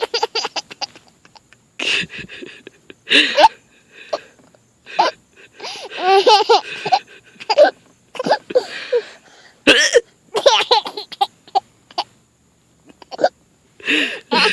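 A woman hiccuping several times, each hiccup a short, sharp gulp. After each one comes a burst of a baby's giggling laughter, the pitch rising and falling.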